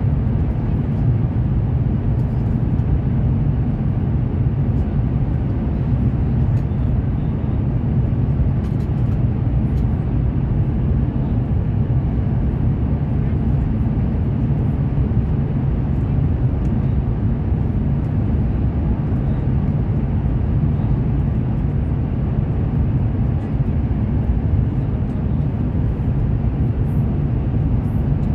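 Steady low rumble of a Fuxing CR400BF-Z high-speed train running at speed, heard from inside the carriage, with a few faint ticks over it.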